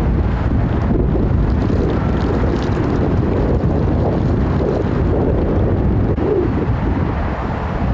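Wind buffeting the microphone, a loud steady low rumble.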